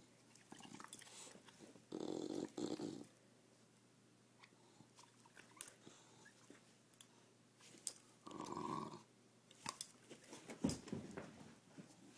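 English bulldog tug-playing with a red rubber bone held in a person's hand: two short bursts of throaty dog noise, about two and eight seconds in, with scattered clicks of teeth on rubber between them.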